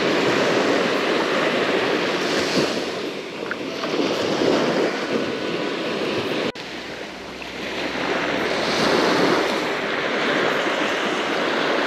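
Small waves breaking and washing up a sandy beach, with wind on the microphone; the surf swells and fades in slow washes. About six and a half seconds in there is a click and the sound drops suddenly, then builds again.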